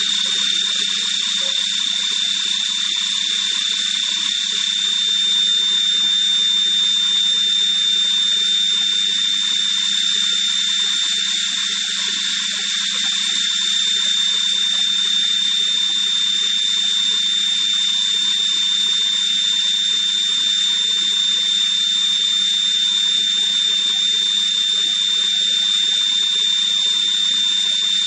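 Leadwell VE-series CNC vertical machining centre running a machining operation: a steady high-pitched whine over a constant hiss.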